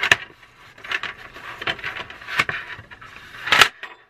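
Hands rubbing back and forth over the plastic base of a Stampin' Up Color Caddy to set its adhesive non-skid pad: about five scraping strokes roughly a second apart, the last and loudest near the end.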